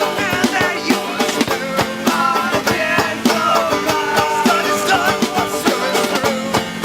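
Acoustic band playing a song live: strummed strings keep a steady beat of sharp strokes, with a wavering melody line over them.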